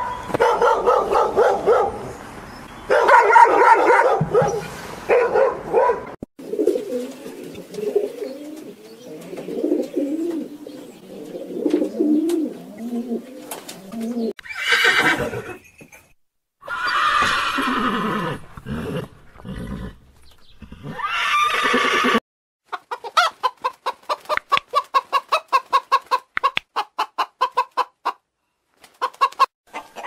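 A run of farm-animal calls: dogs barking in the first few seconds, horses whinnying with calls that fall in pitch around the middle, and chickens clucking in rapid short notes, about five a second, near the end. A lower wavering animal call fills the stretch between the barking and the whinnies.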